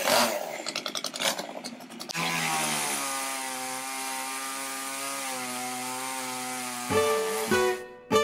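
Small electric chainsaw cutting branches: for the first couple of seconds its motor sounds rough and varies in pitch as it bites into the wood. It then runs at a steady whining pitch, which changes near the end.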